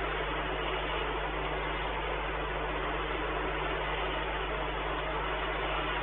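Steady hiss with a constant low hum: the background noise of the nest-box camera's audio feed, with no distinct calls or knocks.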